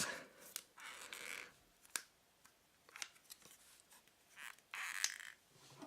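Faint handling noise from a spring-loaded clip clamp being held open and measured: scattered small clicks and ticks, with two brief scraping, rustling stretches, about a second in and again near the end.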